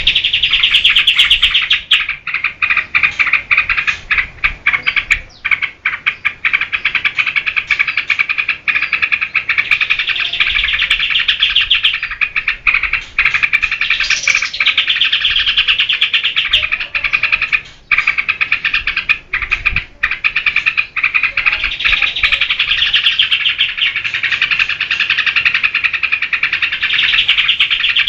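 Yellow-vented bulbul (trucukan) singing vigorously, a loud, fast, almost unbroken chattering warble with a few short pauses, the kind of full song used as a training recording for captive birds.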